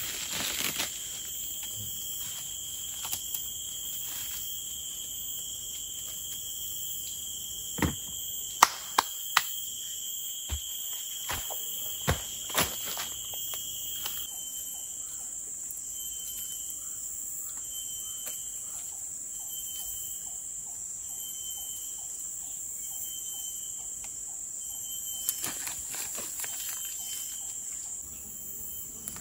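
Forest insects chirring steadily in a high, continuous chorus. A handful of sharp knocks fall about a third of the way in. About halfway through, a pulsing chirp repeating about once a second joins the chorus.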